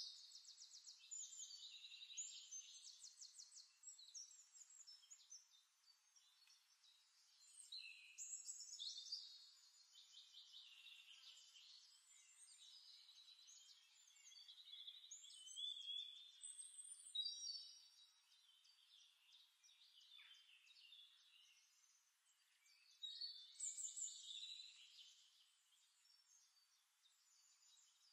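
Faint birdsong: birds chirping, warbling and trilling in high-pitched phrases that come and go every few seconds.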